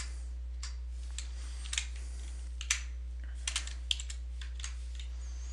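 Typing on a computer keyboard: a dozen or so irregular key clicks over a steady low hum.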